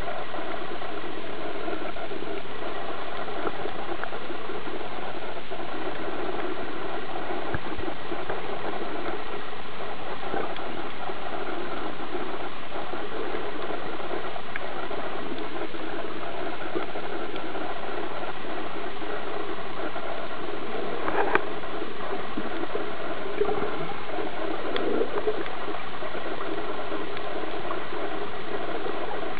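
Steady underwater noise with a continuous engine-like drone, unchanging throughout, and a couple of faint brief knocks about two-thirds of the way in.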